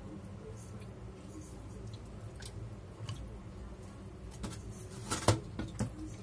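Kitchen shears snipping into the cavity of a raw whole chicken: a few sharp snips in the second half, the loudest about five seconds in.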